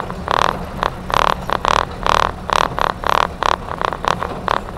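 A UAZ off-roader driving over a bumpy dirt track. The engine drones steadily and low, under repeated rattling bursts about two or three times a second.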